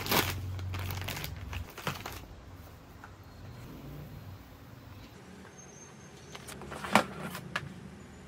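Plastic wet-wipes packet crinkling as it is opened and a wipe pulled out, then quieter wiping over a desk and laptop, with two sharp clicks about seven seconds in.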